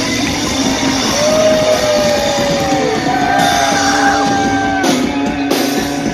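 Live heavy-metal rock band playing loud in a large room, with long held notes from a singer or lead guitar over the band.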